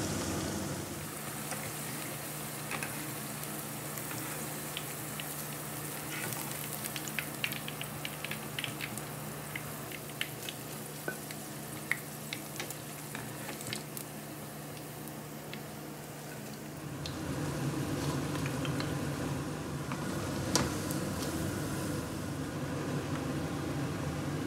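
Onion pakodas deep-frying in hot oil: a steady sizzle with many scattered crackles and pops. About two-thirds of the way through, the crackling thins out and gives way to a steadier, lower rushing noise.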